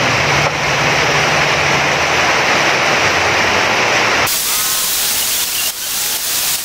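Loud, steady hissing noise that drops abruptly and thins out about four seconds in.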